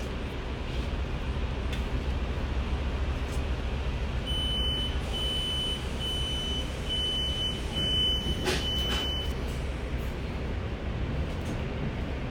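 City bus running, heard from inside the cabin: a steady low engine and road noise, with a run of about five high electronic beeps from about four seconds in to about nine seconds in, the last one longer, and a single sharp click near the end of the beeps.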